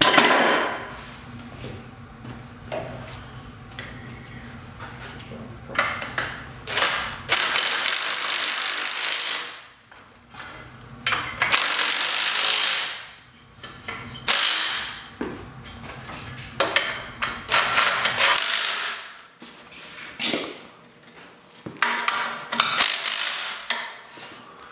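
A cordless power driver spinning a socket on a long extension against an engine, in several separate runs of one to two seconds each, with a sharp knock right at the start.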